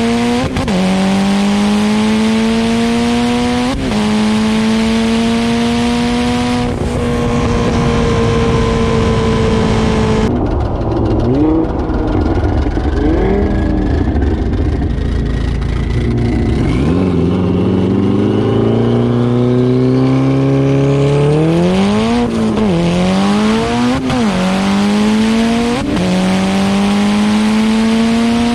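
A tuned performance car accelerating hard through the gears in a street race, its engine note climbing and dropping back at each upshift about every three seconds. Midway the note settles lower for several seconds, then climbs again into a run of quick rise-and-drops near the end.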